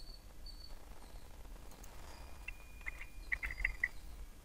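Quiet room tone with a low steady hum, and a cluster of faint short high ticks about two and a half to four seconds in.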